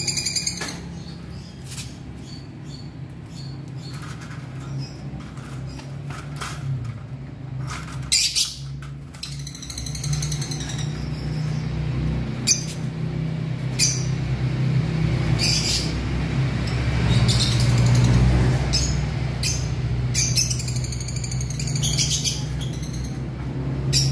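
Young lovebirds flapping their wings inside a wire cage and giving repeated short, sharp calls while a hand reaches in to catch them. The cage rattles now and then, and a steady low hum runs underneath.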